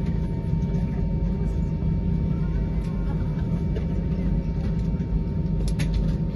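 Steady low drone inside an Airbus A320's cabin, with a faint steady whine over it. A few short sharp clicks come in quick succession about five and a half seconds in.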